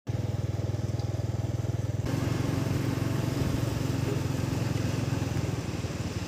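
Small motorcycle engine running with a rapid, even putter, heard close up from the rider's seat. The sound changes abruptly about two seconds in.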